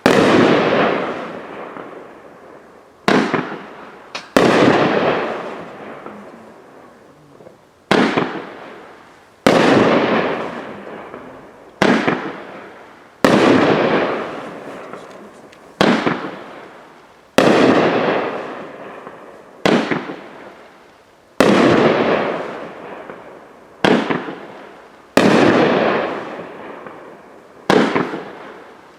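No Name Fireworks "Got Water?" consumer cake firing a steady string of aerial shots, about fourteen sharp bangs, one every second or two, each fading away before the next.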